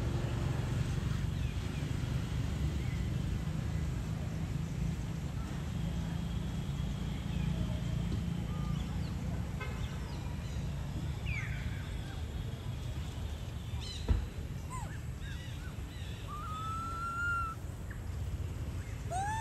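A baby macaque giving a few short, thin squeaky calls that glide up or down in pitch, scattered through the second half, the longest near the end. Under them runs a steady low rumble, with one sharp knock about fourteen seconds in.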